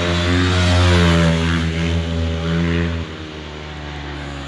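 Pit bike engine running at fairly steady revs, then dropping to a quieter steady hum about three seconds in.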